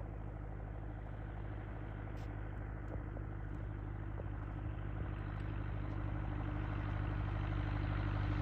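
Cessna 180's six-cylinder Continental O-470 piston engine running steadily, a constant drone that grows gradually louder.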